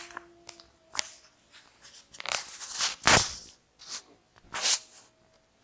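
Rustling and crunching noise close to the microphone, in several bursts, the loudest about halfway through. Behind it a distant wolf howl holds one steady note at the start, fades, and returns faintly near the end.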